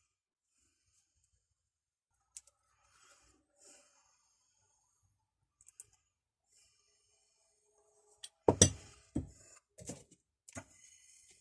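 Objects being handled on a workbench: a few faint clicks, then several sharp knocks about three-quarters of the way in.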